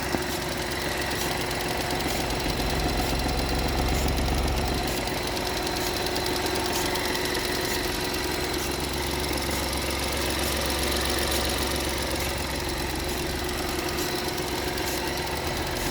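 BMW B38 1.5-litre three-cylinder petrol engine idling, with a deep low rumble that swells twice, around three to five seconds in and again around nine to eleven. The owner asks whether this bad sound comes from bad spark plugs.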